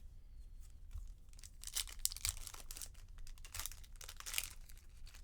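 A baseball card pack's foil wrapper being torn open and crinkled, in two spells of tearing about two and four seconds in.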